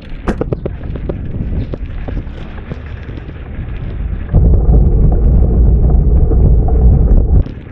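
Wind buffeting the action camera's microphone over riding noise. A heavy low rumble comes in suddenly about four seconds in and cuts off about three seconds later.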